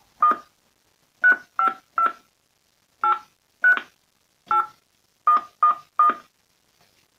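Push-button telephone being dialled: ten short keypad tones (DTMF), tapped out in small uneven groups with pauses of up to a second between them.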